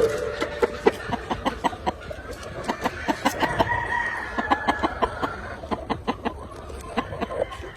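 Gamefowl rooster crowing, one long drawn-out crow from about two and a half to five and a half seconds in, over a steady run of short, sharp clicks and clucks from the flock.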